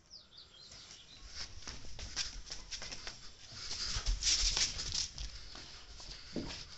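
A German Shepherd's claws clicking and scuffing on concrete as it moves about: a run of irregular light clicks, with low rumbling from a handheld phone being moved.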